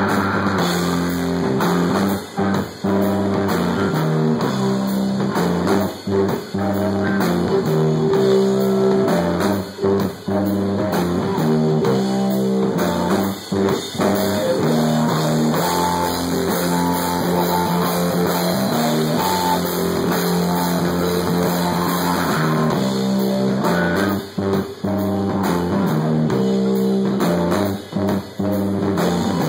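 Stoner-metal band playing live: electric guitar, bass guitar and drum kit pounding out a riff, broken by several short stops where the band cuts out for an instant.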